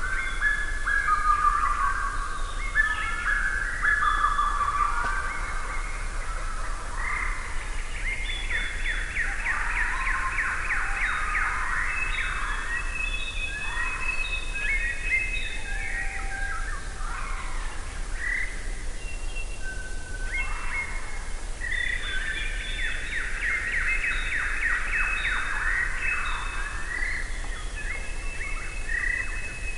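Several songbirds singing and calling at once: short whistled phrases and fast trills, over a faint steady low hum.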